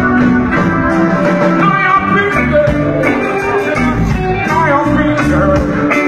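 Live band music with guitar lines over a bass line and a steady drum beat.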